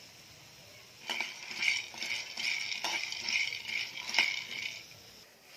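A steel spatula stirs raw peanuts in a kadhai while they roast. The nuts rattle and the spatula clinks and scrapes against the pan, with a few sharper knocks. The stirring starts about a second in and stops near the end.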